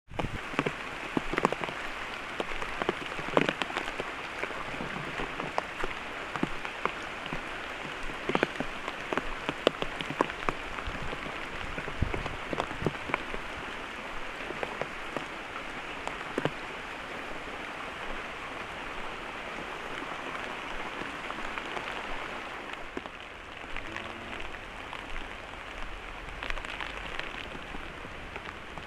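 Heavy rain falling steadily, with many sharp individual drop impacts standing out from the hiss.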